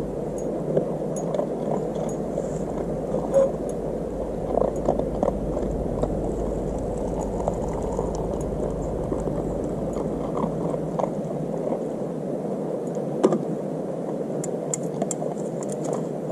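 Hot water poured from a collapsible silicone camping kettle into a metal camp mug, with a few light knocks and clinks as the kettle and mug are handled. Under it all runs a steady rushing noise.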